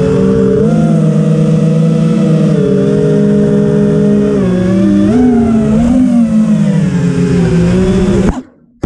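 Five-inch FPV freestyle quadcopter's brushless motors whining, the pitch rising and falling as the throttle changes; the sound cuts off abruptly near the end.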